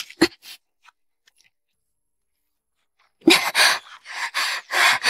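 A person breathing hard in quick, noisy gasps, two or three a second, starting about three seconds in after a silence; a couple of short breathy sounds come right at the start.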